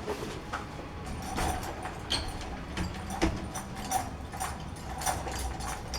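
Irregular light clicks, knocks and rattles as a BMX bike is handled and clamped into a bike work stand.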